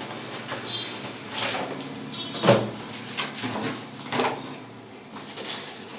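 Cardboard packaging being handled and opened by hand: a white carton slid out of its outer box and its flaps pulled open, with a string of short scrapes and knocks, the loudest about two and a half seconds in.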